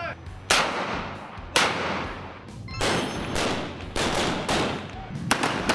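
Rifle fire from several M16-type military rifles on a firing line: about six single shots at irregular spacing, each a sharp crack followed by a long echoing tail.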